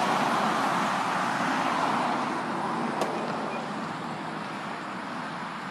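Highway traffic passing: steady tyre and road noise from cars going by, louder for the first two seconds and then slowly fading, with one short click about three seconds in.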